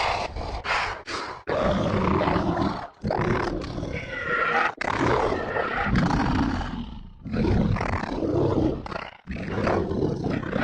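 Harsh, guttural monster-style growling roars in several long bursts broken by short pauses, with a higher wailing shriek about four seconds in.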